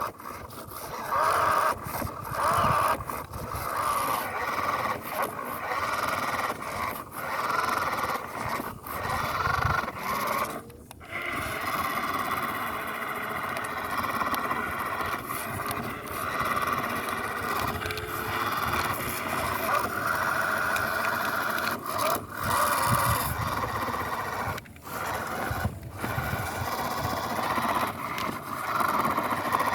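Toy-grade RC car's small electric motor whining steadily in first gear as its wheels spin in sand: the car is stuck and can't climb out. The whine cuts out briefly now and then.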